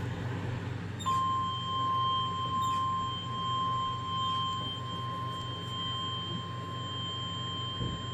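NOAA Weather Radio 1050 Hz warning alert tone: one steady pure tone that starts about a second in and holds without a break, signalling that a warning broadcast is about to follow. Under it runs a low steady hum from the radio.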